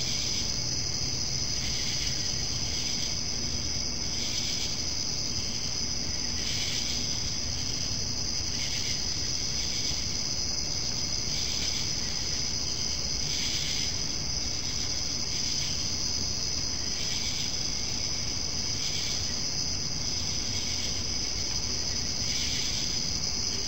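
Crickets chirping at night: a steady high trill, with a second, lower chirp repeating every second or two.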